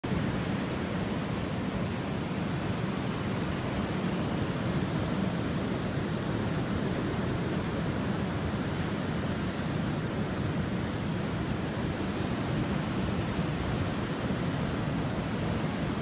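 Ocean surf breaking along a sandy beach: a steady roar of waves with no separate crashes standing out.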